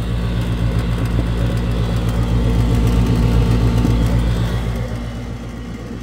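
Ameristar gas package unit running in heat mode: the inducer motor hums steadily under the low rumble of the lit gas burners. The sound swells a little midway and eases near the end.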